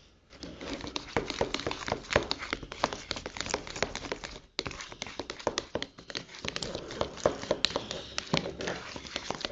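Plastic spatula stirring a wet, sticky slime mixture of glitter and liquid soap in a plastic bowl: a dense run of small wet clicks and squelches, pausing briefly about four and a half seconds in.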